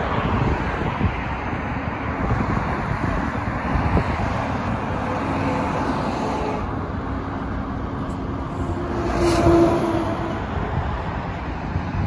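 Multi-lane highway traffic: a steady rush of cars passing below, with one louder vehicle passing a little over nine seconds in.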